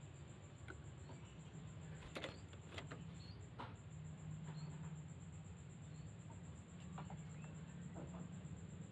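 A few faint, short bird chirps scattered over a low hum, with a steady high-pitched electrical whine behind them.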